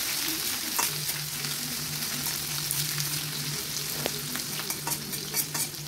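Sliced onions and green chillies sizzling in hot mustard oil in a wok, a steady hiss, with the spatula scraping and clicking against the pan as they are stirred.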